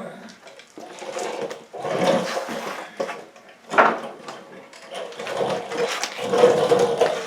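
Hand tools and metal parts rattling and clicking as the fuel tank and carburettor are worked off an old Briggs & Stratton lawn mower engine, with a sharp click about four seconds in.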